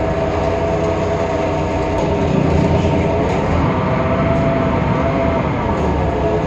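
Temsa Avenue LF city bus's DAF PR 228 diesel engine and ZF Ecolife automatic gearbox running under way, a steady drone with a whining tone that climbs in pitch about three and a half seconds in, holds, and drops back near the end. This bus has a sound unusual for its type.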